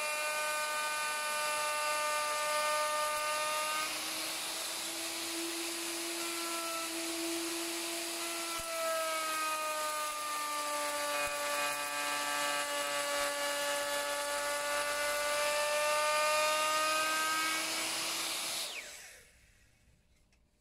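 Plunge router with a side fence cutting a rebate along the edge of a pine board: a steady high whine whose pitch sags and picks up again a few times as the cutter works through the wood. Near the end the router is switched off and winds down.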